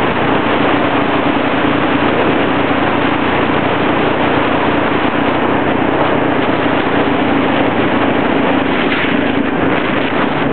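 Steady rushing road and wind noise from a vehicle in motion, with a steady low hum under it.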